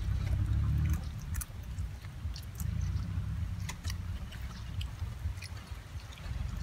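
A puppy eating food off the ground, making scattered small chewing clicks and smacks over a low steady rumble.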